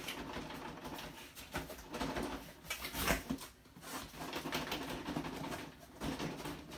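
Cardboard Funko Pop box and its plastic tray rustling and scraping as a tightly wedged figure is tugged and shaken loose; the tray sits so tight it seems held by air pressure.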